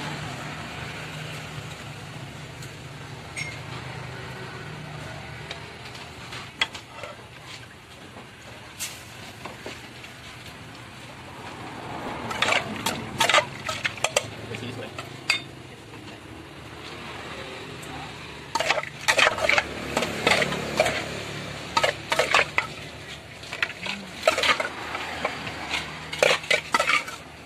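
Metal spoon scraping and clinking against an aluminium pot as grilled pork salad is tossed with its seasoning. The clatter comes in bursts, thickest in the second half, when the pot is also scraped out onto a plate.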